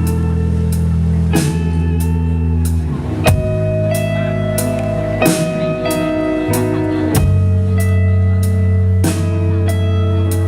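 Band playing an instrumental intro: guitar chords held over a steady drum beat.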